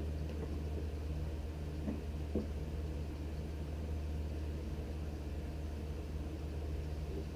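Steady low background hum, with a few light knocks from pedal parts being handled, two of them close together about two seconds in.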